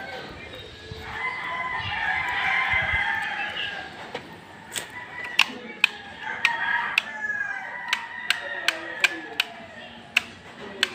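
Gamefowl roosters crowing, several calls overlapping. About halfway through, a string of a dozen or so sharp clicks or knocks comes in, irregularly spaced.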